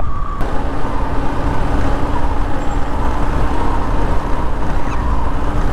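Motorcycle riding at road speed: steady engine running under dense rumbling wind and road noise on the rider's camera microphone, with a faint steady hum throughout.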